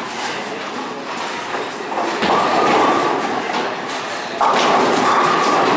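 Rumble of bowling balls rolling in a bowling alley, heard twice, each rumble lasting over a second, the second starting abruptly.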